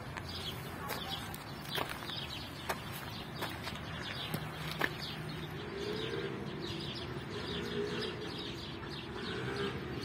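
Small birds chirping repeatedly in short strokes, with a few sharp clicks in the first half.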